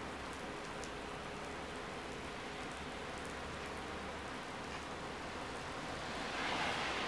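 Steady rain falling on pavement. Near the end a car's tyres hiss on the wet road as it passes, swelling louder.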